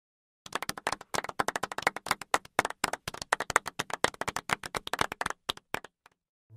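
A small group of people clapping in applause, a quick run of separate claps that starts about half a second in and dies away near the end.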